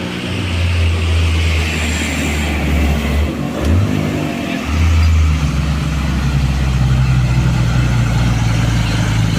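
Heavy truck's diesel engine running with a low, steady drone. About four seconds in the pitch shifts and briefly drops away, then the engine settles into a steady run again.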